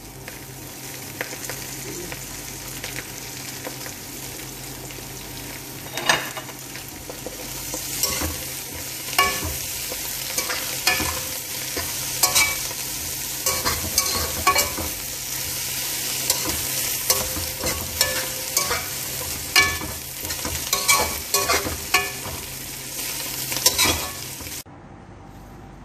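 Dried fish frying in oil in a metal pan, a steady sizzle, while a slotted metal turner stirs and scrapes through it. From about six seconds in come repeated sharp clinks of the turner against the pan. The frying and stirring stop abruptly near the end.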